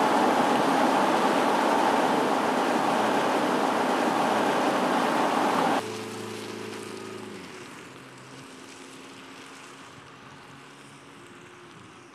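Jeep Cherokee SUV on the move: a loud, steady rush of road and wind noise that cuts off suddenly about six seconds in. It gives way to a much quieter engine hum that fades away as the vehicle drives off.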